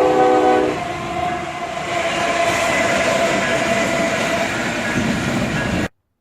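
A horn sounding a chord of several steady notes, which stops about a second in. A loud rushing, rumbling noise with a faint steady tone follows, like a passing train. All sound cuts off abruptly near the end.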